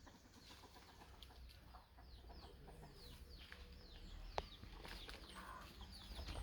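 Faint, repeated short chirping and clucking of fowl, with one sharp click about four and a half seconds in.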